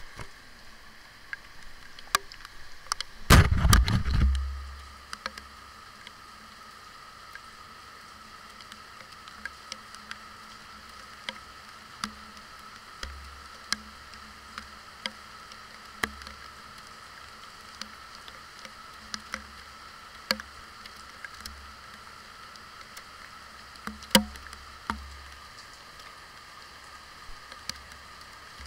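Rain falling, heard through a waterproof camera case: a steady hiss with scattered sharp ticks of drops striking the case. About three seconds in there is a loud burst of handling noise as the camera is set in place.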